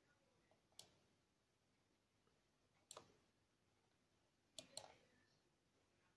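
Faint clicks of a computer pointer button: one about a second in, another near three seconds, and a quick double click a little before five seconds.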